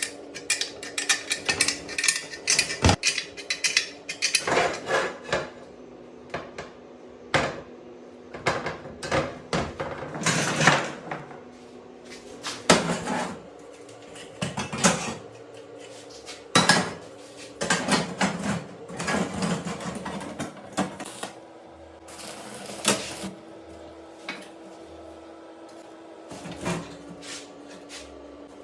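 Irregular metallic clanks, knocks and taps of tools and metal parts being handled and struck, in uneven clusters, over a faint steady hum.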